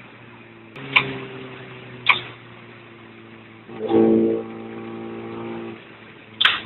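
Gunshots fired in a police chase: three sharp cracks, about a second in, about a second later, and near the end, over a steady engine drone. A louder steady pitched tone sounds for about half a second around four seconds in, then fades.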